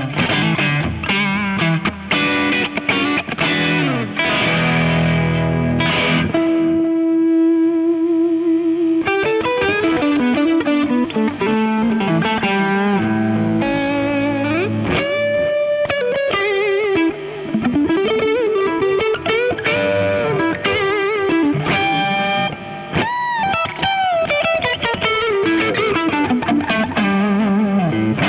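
Electric guitar with single-coil pickups through a Klon Centaur overdrive pedal, playing chords and riffs with the gain at about a third. About six seconds in, the gain goes up to three quarters with the treble turned down, giving a darker overdriven tone, and lead lines with bent notes follow.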